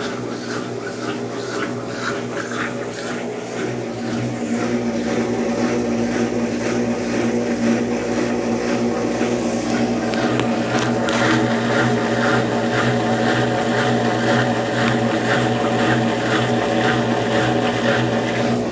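Consul Facilite 10 kg CWC10 top-loading washing machine running through its rinse and spin cycle: a steady hum with an even, rhythmic pulse. It gets louder about four seconds in.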